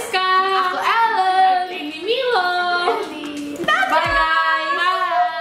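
Women's voices singing a few long held notes, sliding up and down between them, with short breaks in between.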